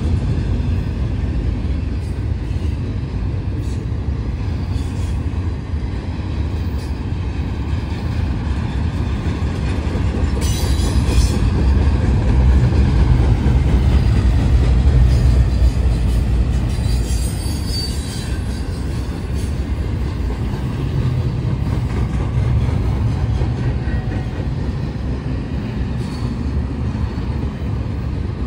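Double-stack intermodal freight train's well cars rolling past at speed: a steady, loud rumble of wheels on rail, with a high-pitched wheel squeal about ten seconds in and again about seventeen seconds in.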